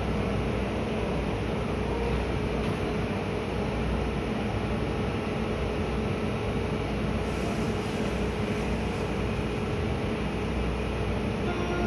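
Steady hum and whir of a stationary Kintetsu limited express train's on-board equipment, with a constant mid-pitched tone, heard on an enclosed station platform.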